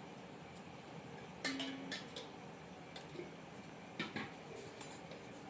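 A few light, sharp clicks and clinks, like dishes or utensils being handled: one about a second and a half in, another shortly after, one near the middle and a quick double click near the end.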